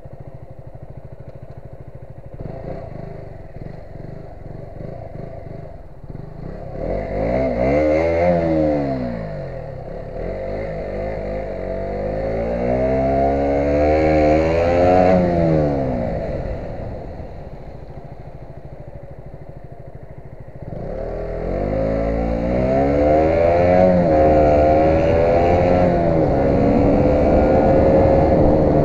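Motorcycle engine under way: low at first, then the revs climb and fall back about a third of the way in, rise in steps through the gears to a peak halfway, drop and hold low for a few seconds, and climb again through the last third. A steady hiss runs underneath.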